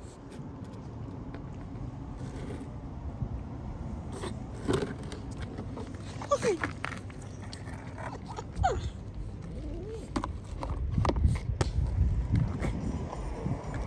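A kitten gives a few short, thin mews, some falling in pitch, over scraping and rustling with scattered clicks and a low rumble.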